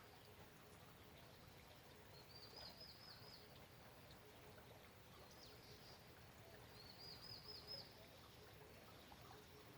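Light rain falling, faint and steady with scattered drop ticks, while a small songbird twice sings a short, high trill of about five quick down-slurred notes.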